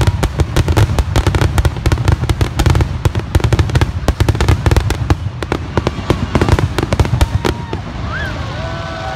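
Fireworks display: a dense barrage of aerial shell bursts and crackles, many bangs a second over a low rumble, thinning slightly near the end.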